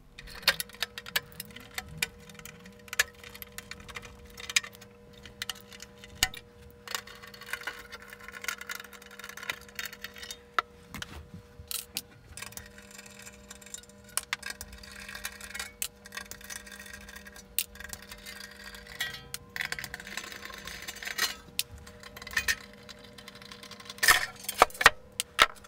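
Clicks, taps and clinks of tools and screws as a perforated steel chassis plate is unscrewed and lifted off a scanner. There are two longer stretches of whirring, about 7 seconds in and again near 20 seconds, and a faint steady hum underneath.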